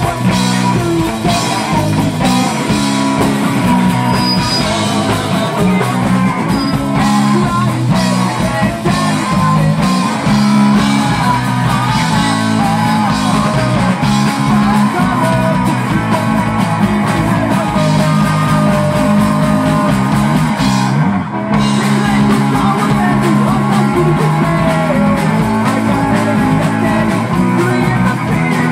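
Live rock band playing loud: electric bass and drums with a voice singing over them. The cymbals and high end cut out for a moment about three-quarters of the way through, then the band comes straight back in.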